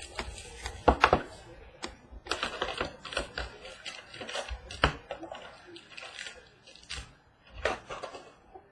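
Sealed trading-card boxes and their packaging being handled and opened by hand: irregular clicks, taps and crinkles.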